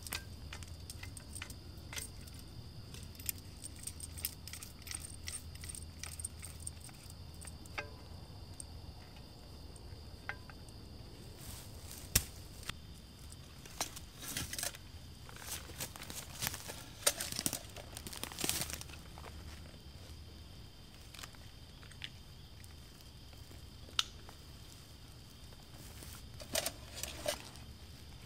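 Camp gear being handled: irregular clicks, light metallic clinks and rustling, with a sharp knock near the middle and a flurry of rustling just after it. A faint steady high-pitched tone sits underneath.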